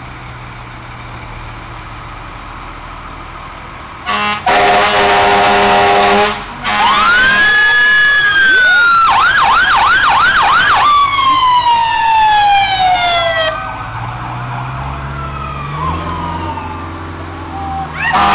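Fire trucks' warning devices. After a few seconds of low engine rumble, an air horn gives a long blast. Sirens then wail up, switch to a fast warbling yelp, and glide slowly back down, with several sirens overlapping. Engine rumble returns before another horn sounds near the end.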